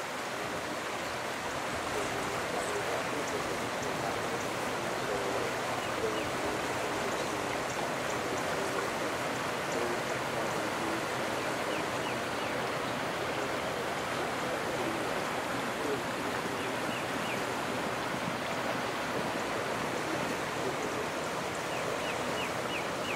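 Floodwater rushing steadily, a continuous even sound of fast-flowing water.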